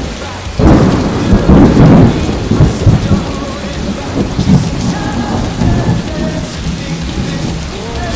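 A clap of thunder breaks about half a second in and rumbles on, slowly fading, over the hiss of rain.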